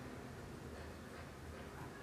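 Faint steady room tone with a low hum, and no distinct paper sounds.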